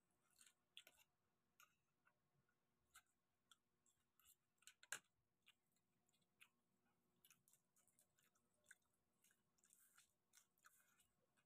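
Faint eating sounds: scattered small clicks and crackles of cooked prawn shells being peeled by hand, with chewing, and one sharper crack about five seconds in.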